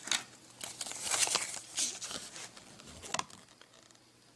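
A small rolled-up knot guide being unrolled by hand: a run of rustling and crinkling handling noises with a few sharper crackles, dying away a little after three seconds in.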